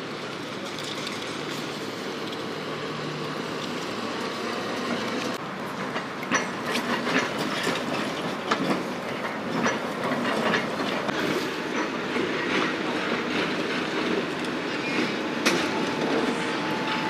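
Trams rolling slowly over wet street track and switches: a steady rolling rumble at first, then from about five seconds in a run of sharp wheel clicks over rail joints and points.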